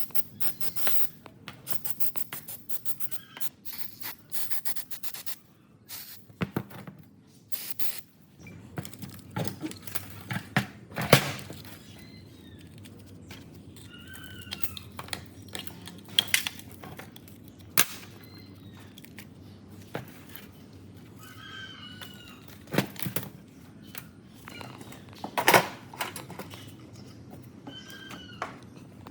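Hand work on rusty metal pump parts: scattered clinks, knocks and scrapes, with a rapid run of ticks in the first few seconds and sharper knocks near the middle and toward the end. A bird chirps briefly several times.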